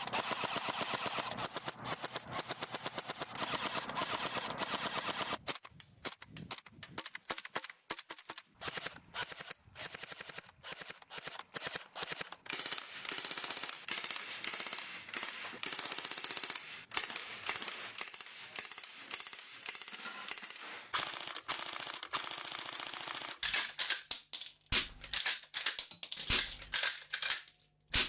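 Gas-powered airsoft guns firing on full auto: a fast, unbroken string of shots for about five seconds, then shorter bursts and single shots with short gaps, and a few louder shots near the end.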